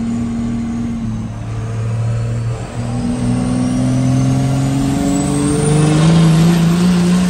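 First-gen Cummins 5.9 L 12-valve turbo diesel making a full-throttle pull in third gear. The engine note dips briefly about two and a half seconds in, then climbs steadily in pitch, with the turbo whistle rising along with it.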